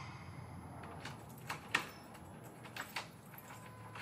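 A few faint, short clicks at uneven spacing over quiet room tone.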